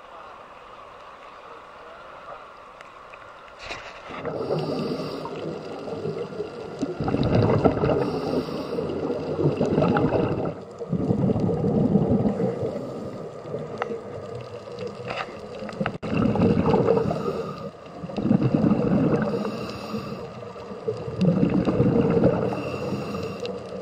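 Scuba diver breathing underwater through a regulator: after a quieter first few seconds, exhaled bubbles rumble and gurgle in loud swells every two to three seconds.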